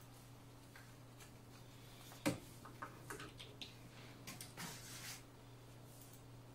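A sharp knock about two seconds in, then a run of light clicks and rustling as a plastic microscope ring light and its cardboard box are handled, over a steady low hum.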